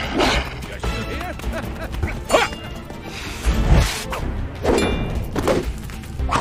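Animated film fight-scene soundtrack: dramatic music under a series of sudden hits and whooshes, about five in all. The loudest is a deep thud a little after the middle.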